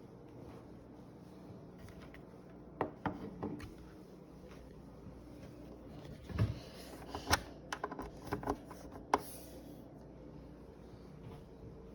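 Scattered light clicks and knocks of something being handled, a few about three seconds in and a denser run from about six to nine seconds in, over a faint steady hum.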